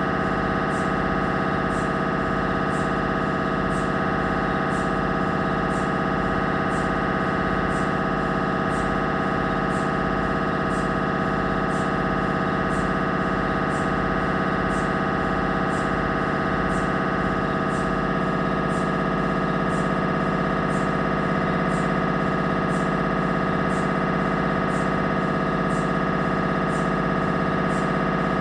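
Siemens Magnetom Avanto 1.5 T MRI scanner running a scan sequence: a steady, many-toned electronic buzz from the gradient coils with a regular repeating pulse. The pattern of tones changes slightly about two-thirds of the way through.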